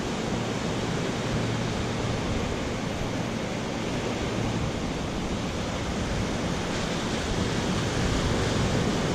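Steady rush of ocean surf breaking on a sandy beach, mixed with wind.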